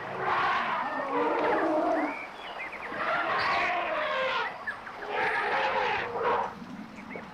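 Elephants calling: several long, pitched calls, one to two seconds each, rising and falling in pitch. Short bird chirps sound in the gaps between them.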